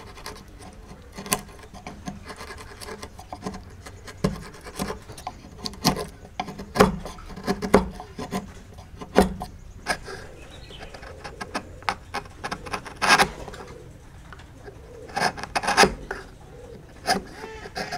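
A steel chisel pushed by hand through wood, paring and splitting waste out of a joint: an irregular string of short cutting and scraping strokes, with a few longer, louder strokes in the last third.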